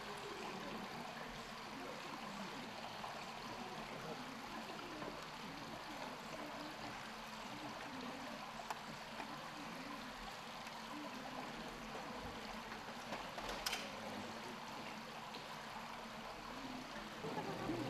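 Steady rush of running water, fairly quiet, with one sharp click a little before the end.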